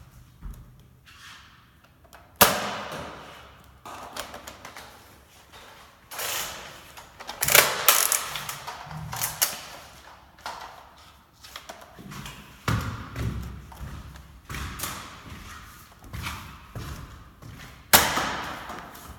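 Foam-dart Nerf blaster being handled and fired: a run of clicks, knocks and thumps, with three sharp loud ones about two and a half seconds in, at about seven and a half seconds, and near the end, each ringing briefly.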